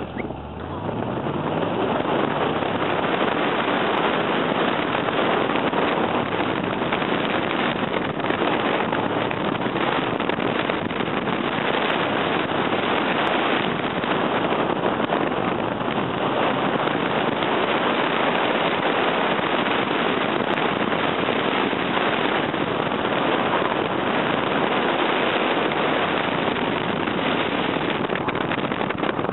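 Car accelerating away on a timed cone-course run: the engine's pitch rises in the first second, then loud, steady wind buffeting on the microphone at the open window covers the engine and tyres for the rest of the run.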